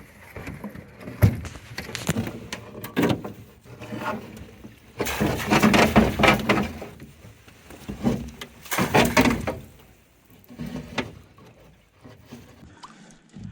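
A hoop net being hauled up by hand onto a small boat: irregular knocks and clatter of the net and its hoops against the hull, with two longer noisy stretches about five and nine seconds in.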